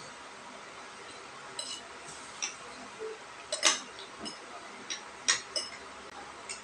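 Cutlery clinking against dishes during a meal: about eight sharp, irregular clinks, the loudest a little past halfway.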